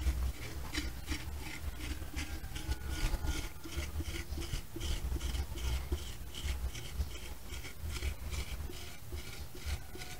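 A potter's hand tool scraping and rubbing along wet clay in quick repeated strokes, about three a second, as the upper and lower parts of a pot are joined.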